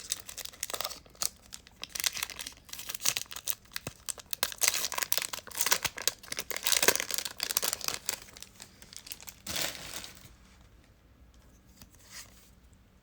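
Trading card pack wrapper being torn open and crinkled by hand, a dense crackling that stops about ten seconds in.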